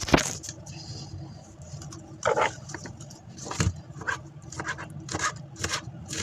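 Kitchen handling noises: a string of short, irregular knocks and clicks of utensils and containers, with a longer scrape about two seconds in.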